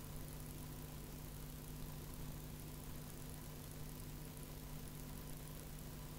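Steady low hum with an even hiss, unchanging throughout: the background noise of a conference-hall recording.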